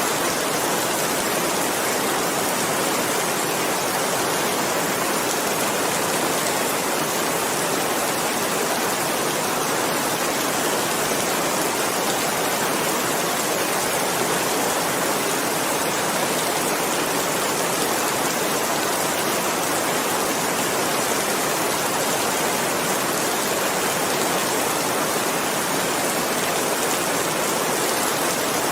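Steady rainfall: an even hiss of rain with fine scattered drop patter, unchanging throughout.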